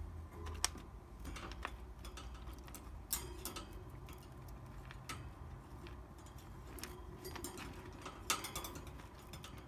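Scattered light clicks and rattles of a wire rat cage as a pet rat and a brush handle poked through the bars knock against the wire, with short bursts of rattling about three seconds in and again near the end.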